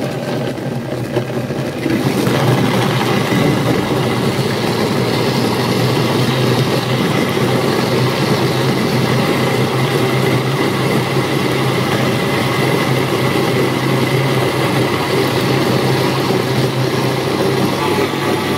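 Electric kitchen blender running, its motor blending chopped fruit and dates into a smooth juice: a steady loud hum that gets louder about two seconds in.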